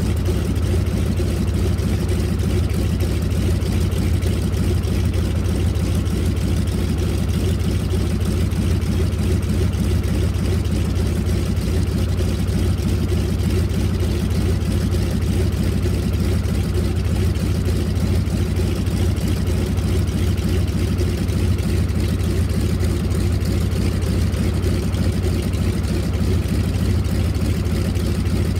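Spartan Executive's radial engine idling steadily, a constant low drone with no change in speed.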